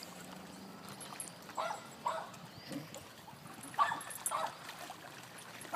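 A dog barking: short sharp barks in two pairs, about two seconds apart.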